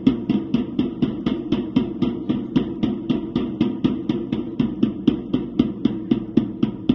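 A drum beaten in a fast, even rhythm, about five strokes a second.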